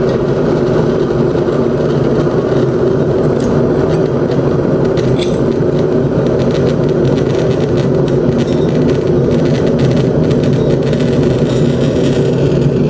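A loud, steady whirring hum, such as a fan or appliance motor running, with a few faint light clicks over it.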